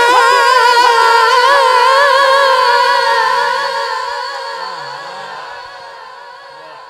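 A man singing a naat unaccompanied through a microphone and PA, holding one long note on 'ho' with wide vibrato. About three seconds in, the note dies away gradually.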